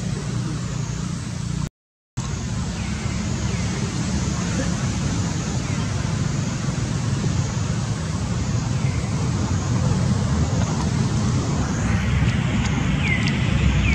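Steady low rumble, like distant road traffic, with faint short high chirps every few seconds. The sound cuts out completely for a moment about two seconds in, and near the end a brighter hiss with a few clicks rises over the rumble.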